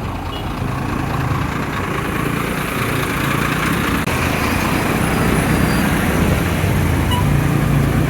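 A motor vehicle engine running amid road traffic noise, with a steady low hum that grows gradually louder.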